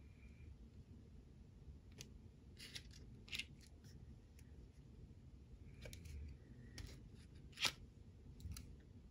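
Faint paper handling of planner stickers being peeled from their sheet with a pointed tool and pressed into place: a scatter of short ticks and crackles, the sharpest one near the end.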